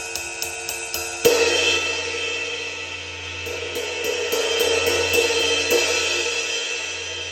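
Paiste 20" Signature Series Full Ride cymbal played with a stick: a steady ride pattern of about three strokes a second, then one hard hit about a second in that opens into a long shimmering wash, with quicker strokes of about four a second in the middle.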